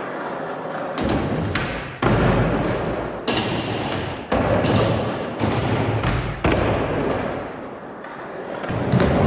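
Skateboard wheels rolling over a smooth skatepark floor, with sharp thuds and clacks of the board hitting the ground and obstacles about once a second.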